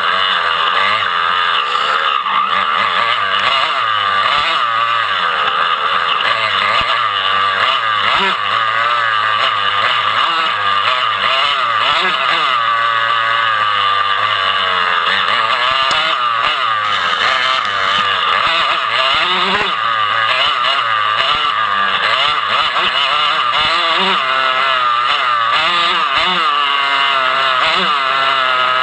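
Off-road motorcycle engine running close up on a woodland trail, its revs rising and falling constantly with the throttle.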